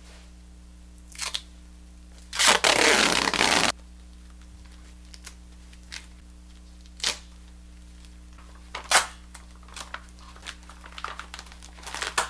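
A long strip of duct tape ripped off the roll in one pull lasting just over a second, about two and a half seconds in, with a few sharp crinkles and taps of tape and wrapping being handled around it.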